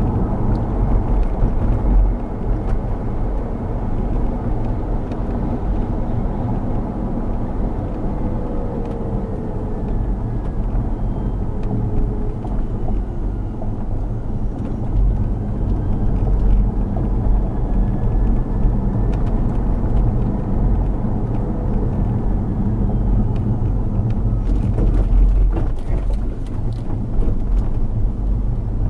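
Steady low rumble of road and running noise inside a moving car's cabin. Near the end comes a cluster of short, sharp clicks and knocks from the car's suspension.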